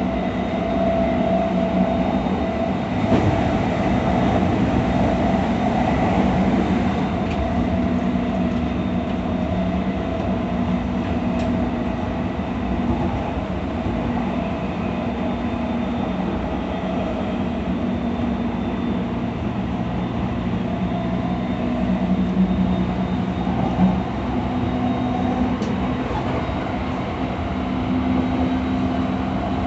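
E217 series electric train running at speed, heard from inside the car: a steady rumble of wheels on rail with a constant low hum and a couple of brief knocks.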